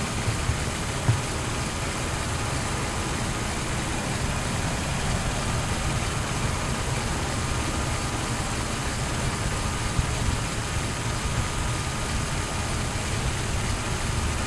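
LEGO Technic RC off-roader driven by two Power Functions L-motors, its motors and plastic gear train whirring steadily with a low rumble as it rolls over concrete, heard up close from on board. A couple of light knocks come about a second in.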